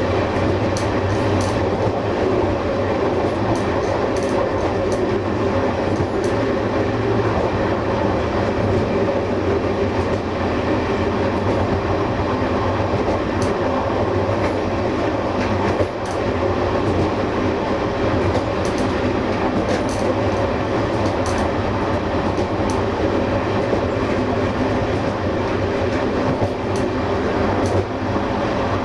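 Passenger train running along the line, heard from its rear: a steady rolling rumble of wheels on rail, with scattered light clicks over the track.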